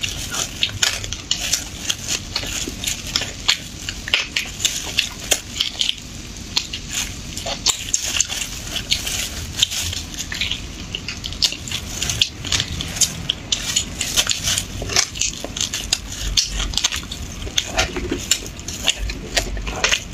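Close-up eating sounds of a person sucking and chewing spicy beef bone marrow from a bone held to the mouth: a dense, irregular run of wet smacks and clicks.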